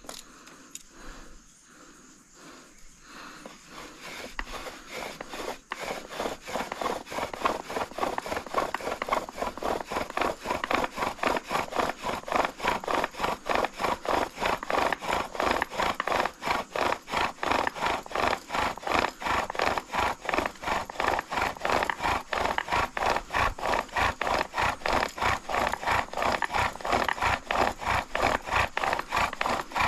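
Bow drill in use: the bow saws back and forth, spinning a wooden spindle that grinds against the fireboard to make an ember by friction. The strokes start slow and faint, then build over the first several seconds into fast, steady, even strokes.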